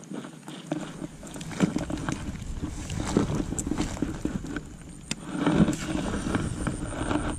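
Handling noise from a baitcasting reel and rod being worked by hand: irregular clicks, knocks and rustling, over a low rumble that comes in about a second in.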